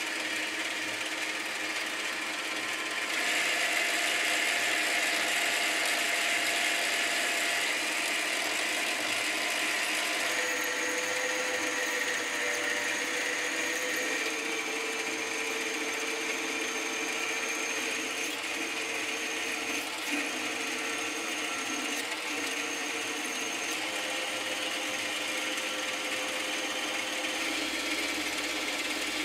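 Metal lathe turning aluminium bar stock: the spindle running while the cutting tool shears off chips, a steady mechanical whine that gets louder about three seconds in and shifts pitch a few times as the cut goes on.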